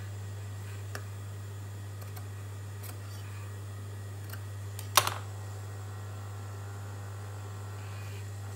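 Industrial sewing machine motor humming steadily while idle, with scattered light clicks and one sharp click about five seconds in as fabric is handled at the machine. No stitching is heard.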